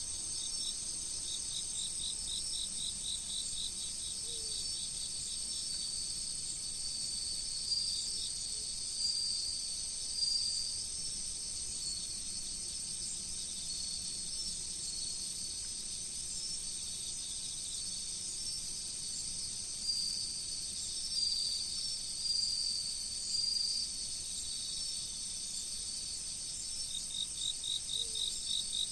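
Chorus of autumn crickets and other singing insects: a steady, high continuous trill throughout, with a rapidly pulsing chirp in the first few seconds and again near the end, and short ringing phrases a few times in the middle.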